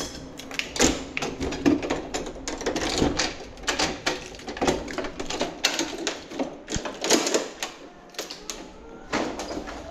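A run of irregular clicks and short rattles, several a second with brief pauses, like objects being handled and set down on hard surfaces.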